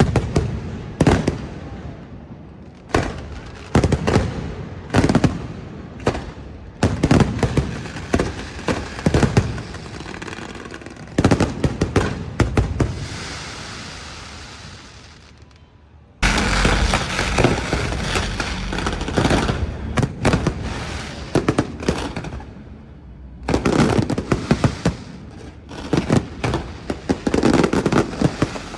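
Fireworks display: aerial shells bursting one after another in rapid series of bangs, with a stretch of crackling about halfway through, then a sudden thick barrage of bursts.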